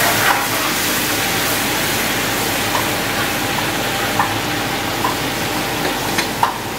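Hot sugar water hissing and sizzling as it hits semolina roasted in ghee in the pan, the first stage of turning the roasted suji into halwa, while it is stirred. A steady hiss runs throughout, with a few light clicks.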